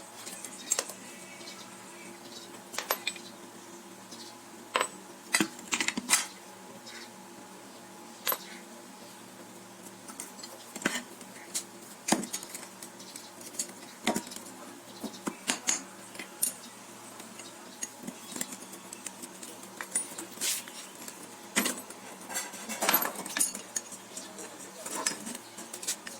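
Irregular metallic clinks and taps, as of steel tools and parts being picked up and set down, some ringing briefly.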